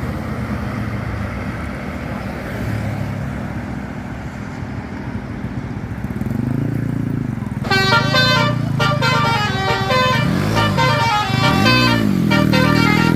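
Bus engine running, then from about eight seconds in a multi-tone 'telolet basuri' musical horn plays a fast tune of short, flute-like notes stepping up and down, with two low swooping tones near the end.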